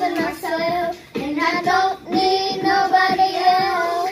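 A young girl singing in a high voice: three sung phrases with short breaks between them, the last a long held note.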